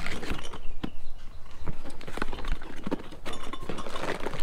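Cardboard boxes being handled and rummaged through, with irregular knocks and rattles from the boxed metal exhaust parts inside.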